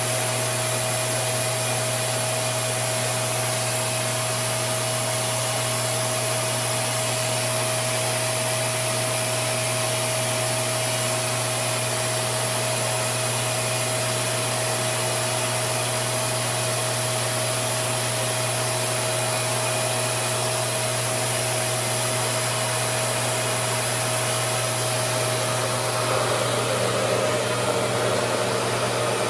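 RevAir reverse-air blow dryer running steadily on medium heat: a constant rush of suction air with a steady whine over a low hum. The air noise turns slightly rougher near the end.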